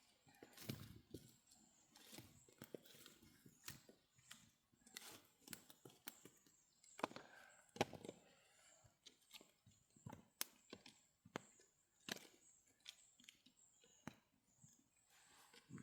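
Small campfire of wet wood crackling: faint, irregular snaps and pops.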